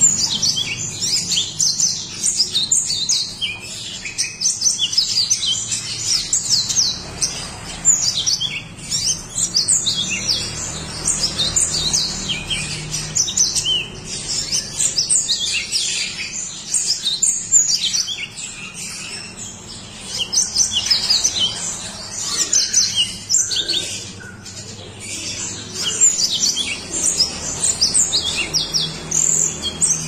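Yellow-fronted (Mozambique) canary singing a fast, continuous stream of high twittering chirps, with a couple of short pauses in the second half.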